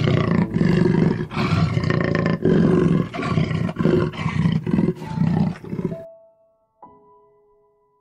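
A big cat roaring: a loud run of rough roars broken by short gaps, stopping about six seconds in. A soft piano note follows near the end.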